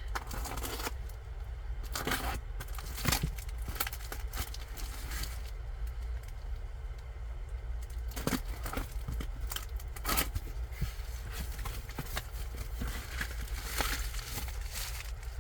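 A cardboard shipping box being opened and unpacked by hand: irregular rustling, crinkling and tearing with sharp knocks and clicks, over a steady low hum.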